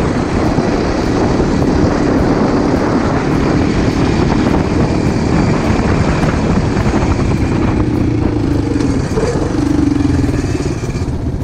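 Quad bike (ATV) engine running steadily at cruising speed, heard from the quad itself, under a dense rush of riding wind on the microphone.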